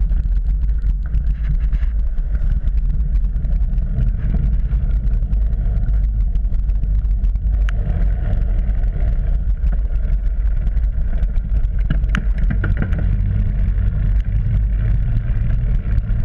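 Mountain bike rolling fast over a dirt trail, heard from a GoPro on the bike: a steady low rumble of tyres and wind across the microphone, with a few sharp clicks and rattles from the bike, the loudest about 8 and 12 seconds in.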